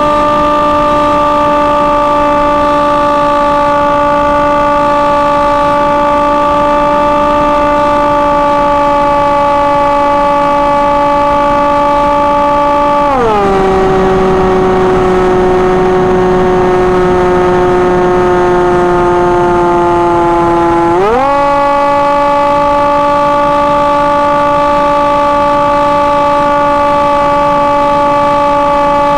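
Electric motor and propeller of a Hawk Sky RC plane whining at a steady pitch, heard close up from the plane's onboard camera. About halfway through the throttle is eased back: the pitch drops sharply and sinks slowly for about eight seconds, then jumps back up to full power.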